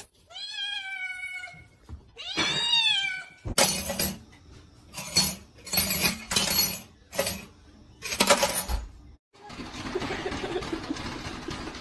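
A kitten meows twice, two long meows that rise and then fall in pitch. Then comes a run of sharp clatters and knocks, then a steady rushing noise.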